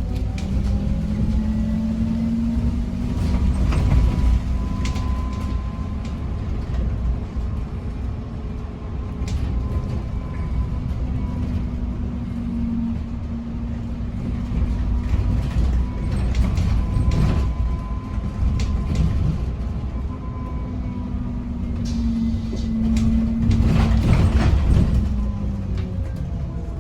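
Inside a moving bus: a steady low rumble with a whine that slowly rises and falls in pitch, and scattered knocks and rattles.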